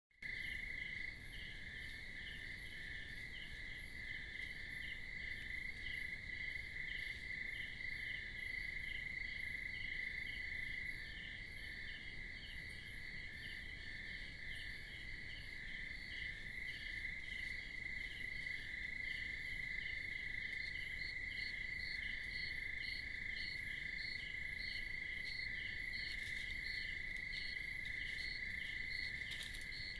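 Night chorus of calling animals, insects or frogs: a steady high-pitched drone with a rhythmic pulsed call above it, about two pulses a second.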